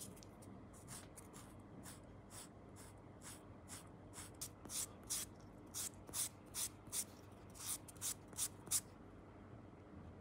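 Purple sanding sponge rubbed in short scraping strokes over a black rubber scale-model tyre, about two strokes a second, the strokes growing louder partway through and stopping about a second before the end.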